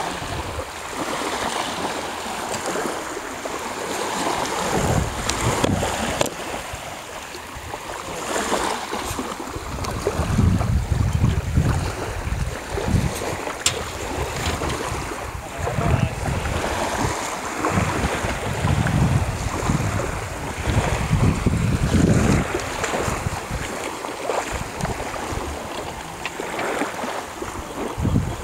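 Wind gusting over the microphone in irregular low buffets, over small waves lapping in the shallows around a wading group and a beached sailboat.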